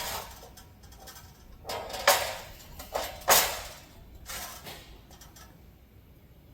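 A handful of sharp metal clanks and scrapes, a few seconds of hard objects being set down and slid on a steel plasma-cutting table, each with a brief ring.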